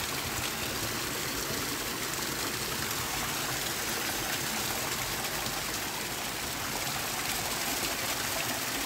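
Small waterfall on a stream: water pouring and splashing in a steady rush.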